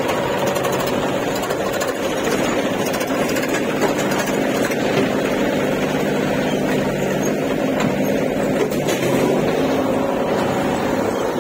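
John Deere 5045 D tractor's three-cylinder diesel engine running steadily under load as it hauls a trolley heaped with soil across a soft, ploughed field.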